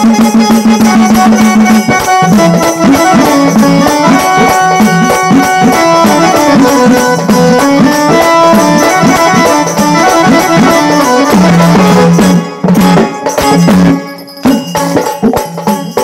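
Instrumental interlude of Marathi jagran-gondhal folk music: a stepping melody line played over fast, steady drum and jingling tambourine-like percussion, opening on one held note. Near the end the rhythm breaks into a few separate strokes before picking up again.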